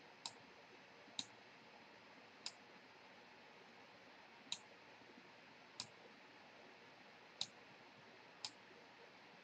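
Seven sharp computer mouse clicks, irregularly spaced about one to two seconds apart, over near silence.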